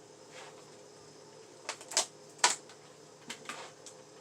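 A handful of light clicks and knocks from kitchen containers and utensils being handled, the loudest about two and two and a half seconds in, over a faint steady hum.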